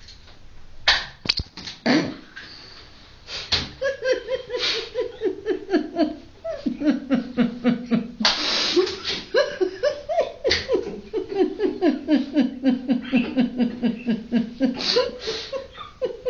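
A person laughing hard: long runs of quick 'ha' pulses, each run falling in pitch, broken twice near the middle by sharp gasping in-breaths. A few knocks come before the laughter starts.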